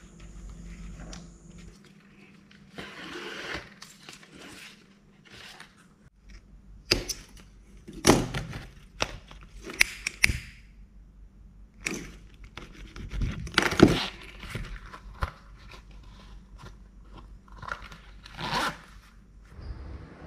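Hands working leather by hand: a series of irregular scraping and rustling strokes as leather pieces, needle and thread, and a zipper are handled, with several sharper scrapes spread through.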